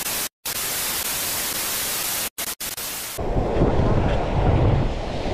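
Television static sound effect: a steady hiss of white noise, broken by a few brief dropouts, that cuts off abruptly about three seconds in. Then wind buffets the camera microphone with a low rumbling noise.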